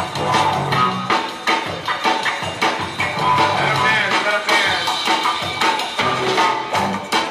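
Breakbeat dance music with a steady drum beat and melodic lines over it.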